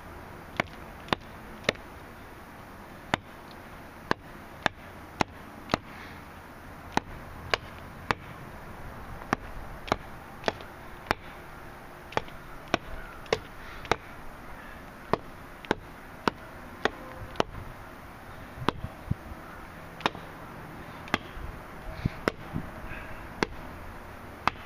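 Machete blade chopping into a wooden stick held upright against the ground: sharp, separate whacks, about one or two a second with short pauses.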